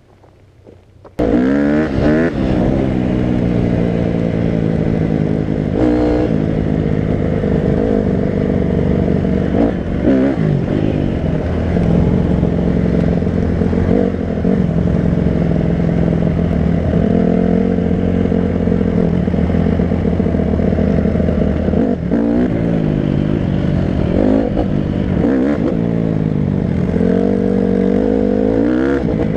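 Quad (ATV) engine running loudly, coming in abruptly about a second in and revved up and down repeatedly, with some clatter from the machine.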